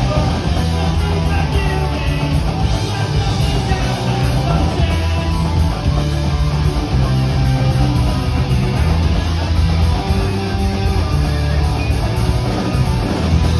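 Live punk rock band playing loudly: electric guitars, electric bass and a drum kit.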